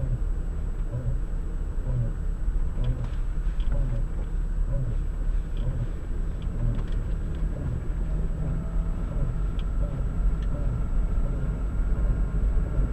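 Car rolling at low speed with a rhythmic low thumping from the drive axle, about twice a second over the running noise. It is an extraneous drive noise that comes with vibration and repeats faster as road speed rises, the sign of a fault in the drive.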